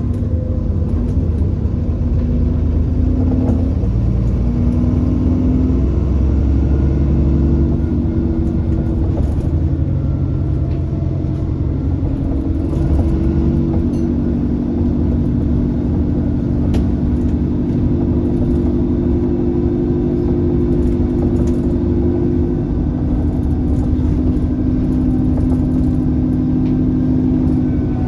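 Alexander Dennis Enviro400 double-decker bus's diesel engine running on the move, a heavy low rumble whose pitch steps up and down several times as the revs change.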